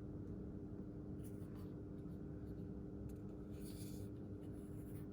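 Light rustling and scraping of things being handled, in short spells about a second in and again past the middle, over a steady low hum.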